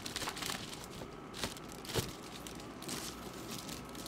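Crinkling and rustling of a foil bubble-wrap insulation sleeve being handled around a plastic bucket, with two sharp knocks about a second and a half and two seconds in.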